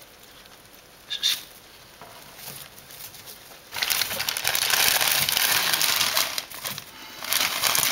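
Dry hay rustling and crackling as guinea pigs scurry through their bedding, turning loud and dense about four seconds in. A brief sharp sound about a second in.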